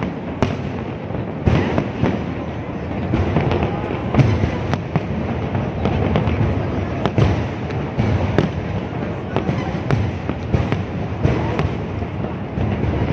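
Fireworks display: aerial firework shells bursting one after another, many sharp bangs over a continuous din of further bursts.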